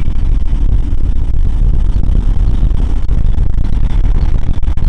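Deep, steady rumble of the Minotaur V's solid-fuel rocket motors in flight.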